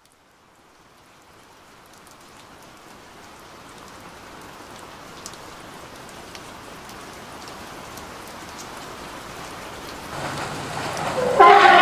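A rain-like rushing of a huge flock of birds' wings, fading in from silence and growing steadily louder, with scattered faint ticks. About ten seconds in, a loud pitched sound with several harmonics comes in over it and grows suddenly louder near the end.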